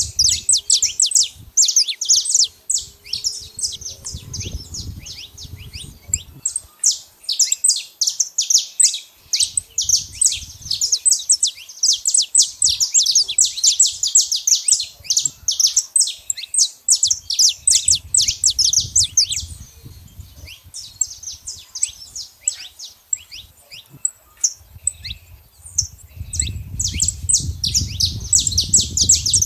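Saffron finches chirping in a dense, rapid stream of short high notes, thinning out for a moment about a third of the way in and again past two-thirds, with a low rumble underneath near the end.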